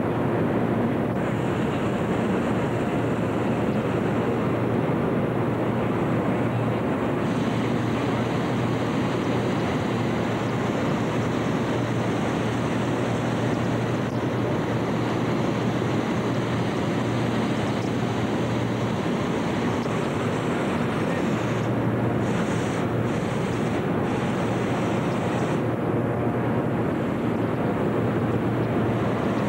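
Steady rushing din of many hot-air balloons being inflated together inside a huge hangar: burners and inflator fans running at once, with a low hum that drops out and returns a few times.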